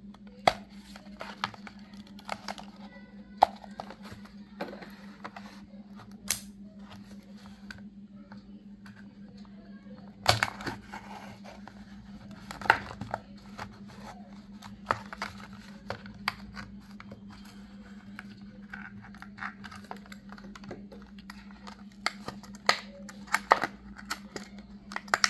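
Plastic blister pack and cardboard backing of a Hot Wheels die-cast car being cut open with a folding knife and pulled apart: scattered clicks, crinkling and tearing, loudest about ten and thirteen seconds in. A steady low hum runs underneath.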